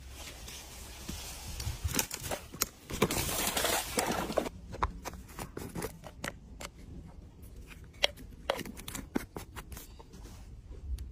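Handling noises: rustling and splashing with scattered knocks as a carp goes into a keepnet, loudest a few seconds in. Then a run of sharp clicks and taps as a plastic bait bottle and its screw cap are handled.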